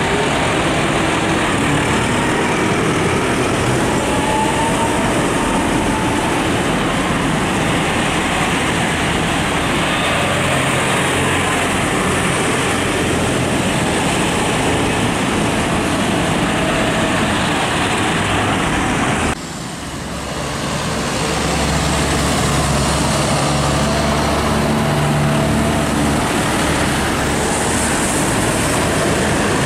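A procession of farm tractors drives past close by, a continuous mix of diesel engines and tyres hissing on the wet road. About two-thirds of the way through the sound dips suddenly and builds back up. The deep steady engine note of a John Deere tractor passing close then comes to the front.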